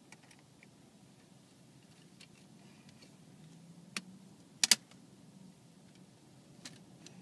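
Plastic CD jewel case clicking as a toddler handles it: a single click about four seconds in, then two sharp clacks in quick succession just after, over a faint steady low hum.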